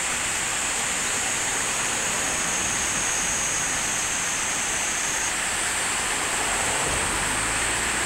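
Water pouring over a low two-step weir in a small river: a steady, even rushing splash.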